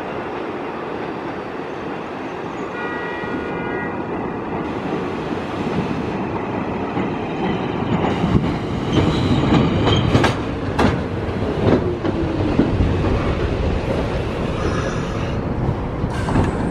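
New York City subway train pulling into an elevated station. Its wheels clack over the rail joints, with a run of sharp clicks partway through and a falling whine as it slows to a stop.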